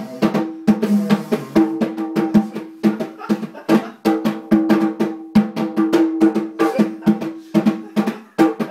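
Bongo drums beaten fast by hand, a rapid, uneven run of sharp slaps, several a second, with the two drums' ringing pitches showing through.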